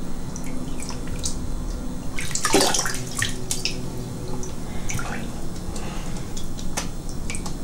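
Tap water running into a bathroom sink with irregular splashes as a man washes his face, the biggest splash about two and a half seconds in.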